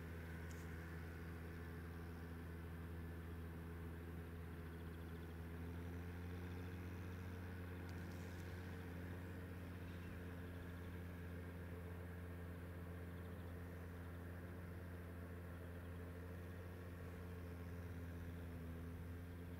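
Steady low mechanical hum, like an engine idling, with several even tones that never change.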